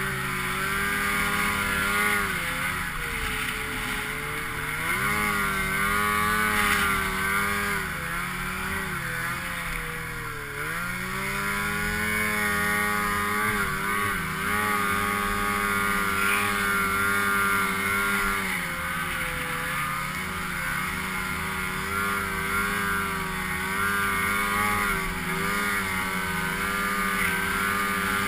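Snowmobile engine running under way, its pitch dipping and climbing back several times as the throttle eases and opens, with the deepest dip about ten seconds in.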